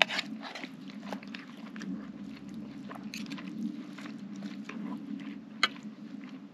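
A man chewing a mouthful of grass-fed ribeye steak: many small, irregular mouth clicks, with one sharper click about five and a half seconds in.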